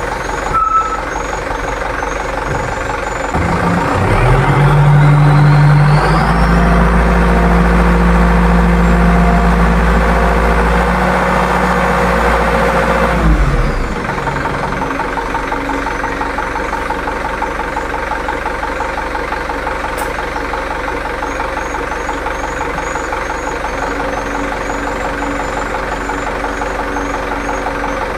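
Mitsubishi Fuso Canter dump truck's diesel engine idling. About three seconds in, it speeds up and runs louder and higher under the load of the PTO-driven hydraulic pump while the dump bed is raised. It drops back to idle at about 14 seconds, with the bed fully up.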